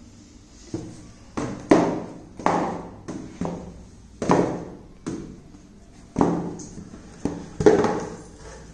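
About ten irregular rustling slaps and thuds, each with a sharp start and a short fading tail, as a large green sheet is handled and dropped on a stone floor.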